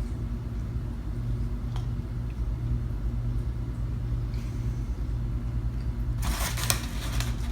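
A steady low hum throughout. About six seconds in, tortilla chips start crackling and crunching, a dense brittle noise.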